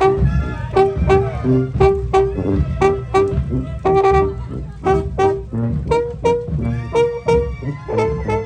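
Live Mexican brass band music: brass instruments playing a melody in held notes over steady, regular drum beats.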